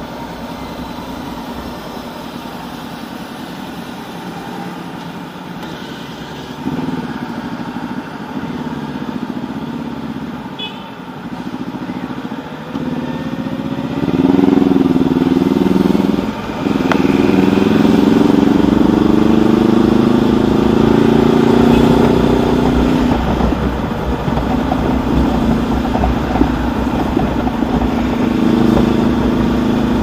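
Honda CB500X parallel-twin engine heard from the rider's seat on the move, with wind and road noise. Quieter cruising at first. About halfway through, the engine note rises under acceleration, breaks briefly at a gear change, climbs again, then settles into steady cruising.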